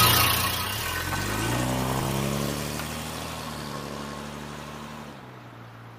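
Classic Jaguar saloon car's engine pulling away: its note rises over the first couple of seconds, then holds steady and fades as the car draws off, with most of the sound dropping out near the end.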